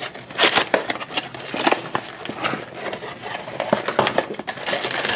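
A small cardboard blind box being torn open by hand: a run of sharp, irregular cracks and scrapes as the glued flap gives way.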